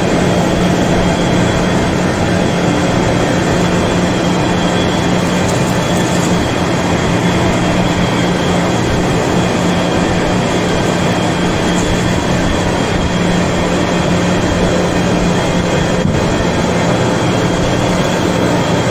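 Heavy-duty vertical lathe running while turning a large metal ring: a loud, steady machine drone with a constant low hum and no letup.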